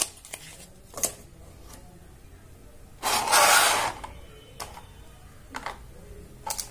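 Unboxing handling noise: a few light clicks of paper and plastic, then about three seconds in a loud rustling scrape lasting about a second as the clear plastic blister tray holding the trimmer comes out of its cardboard box, followed by soft taps on the plastic tray.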